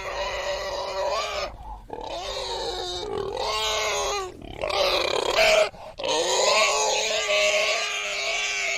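Pig squealing: a run of long, high, strained squeals, about four of them, each broken off by a brief pause.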